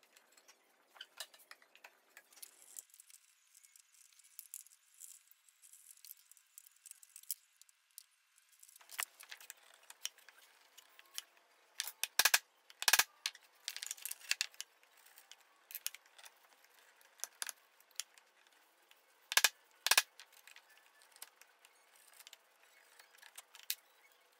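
Hand chisel and a small brass box hinge being worked against a wooden box while the hinge is fitted: scattered light clicks, taps and scrapes of steel and brass on wood, with a few sharp, louder clicks about halfway through and two more later on.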